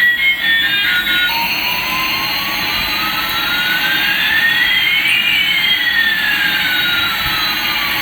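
Electronic jet-engine sound effect from a toy airliner's speaker: a short beeping tune ends about a second in, then a steady hiss starts with one tone rising slowly and another falling slowly, crossing midway.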